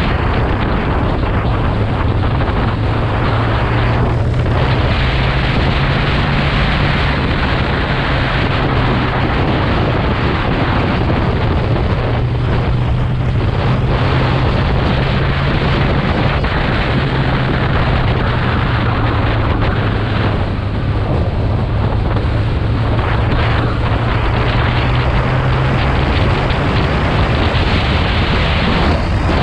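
Kawasaki motorcycle with an Akrapovič exhaust running at a steady engine speed under way, with heavy wind rush on the microphone.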